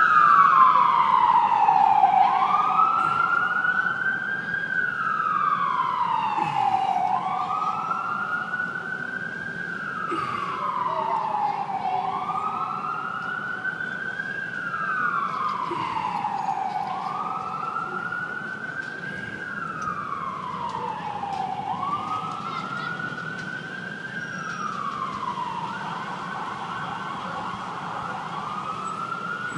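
Ambulance siren on a slow wail, rising and falling about every five seconds, fading gradually as the ambulance drives away.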